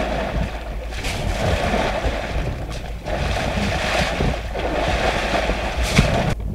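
Wind buffeting the microphone: a rushing noise that swells and eases in gusts.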